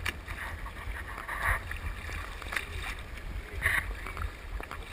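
Choppy seawater slapping and lapping against a kayak hull, with a few brief splashes, over a steady low rumble of wind on the microphone.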